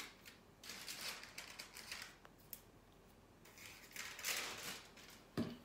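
A hand rubbing and smoothing a sheet of paper over the decoupage tissue on a stool seat: a few swishing strokes of paper rustle, then a short dull knock near the end.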